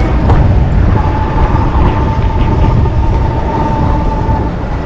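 Wind buffeting and road noise on a moving motorcycle, with a steady whine that comes in about a second in and stops near the end.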